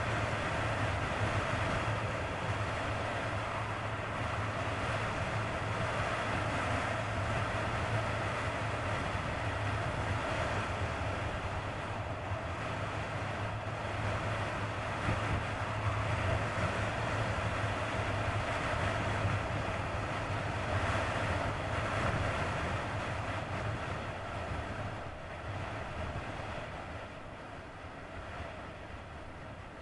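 Kawasaki ZX-9R inline-four engine running steadily under way, mixed with wind and road noise at riding speed, growing quieter over the last few seconds.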